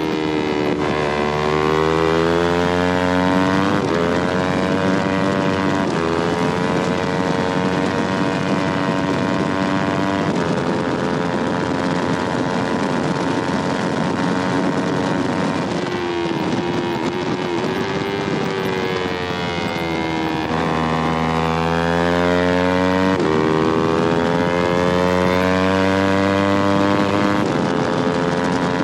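Yamaha R3's parallel-twin engine at racing revs. Its pitch climbs and drops back sharply at each upshift, three times in the first ten seconds. It falls away as the bike slows around the middle, then climbs through the gears again in the last third.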